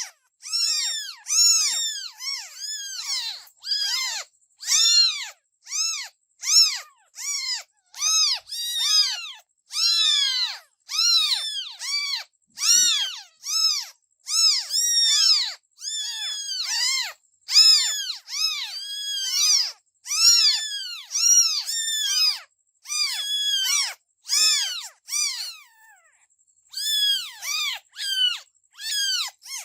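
Kittens meowing over and over: short, high-pitched calls that each rise and fall in pitch, about two a second, with a short lull a few seconds before the end.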